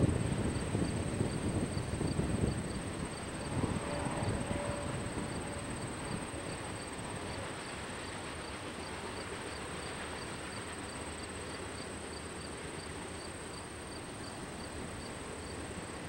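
An insect chirping in an even rhythm of about four short high pulses a second. Under it, the low rumble of a distant freight train fades out over the first several seconds as the train recedes.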